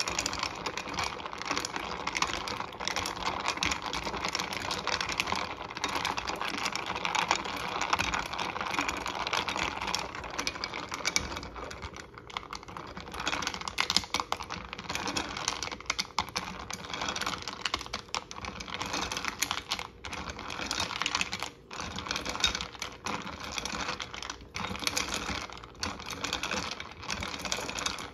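Ice cubes and a plastic ladle clinking and rattling against the sides of a glass pitcher as a drink is stirred: a rapid, irregular run of small clicks with a few brief pauses.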